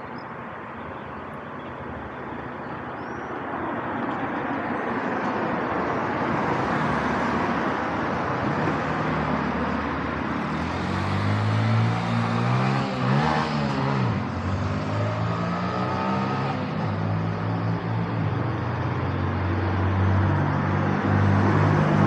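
Road traffic: a steady wash of passing cars that grows louder over the first several seconds. About halfway through, a vehicle's engine passes close by.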